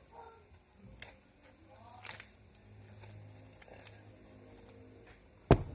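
Faint handling noises, small clicks and rustles, with one sharp knock about five and a half seconds in.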